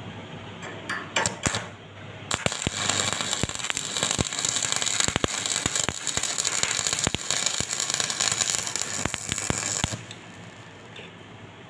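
Stick welding arc: a few short scratching strikes about a second in, then the arc catches and crackles steadily with sharp pops for about eight seconds before breaking off.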